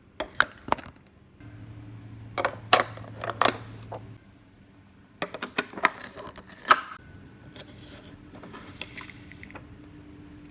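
Plastic toy playset pieces being handled and fitted together: irregular clicks and clacks in small clusters, with a faint steady hum for a couple of seconds in the middle.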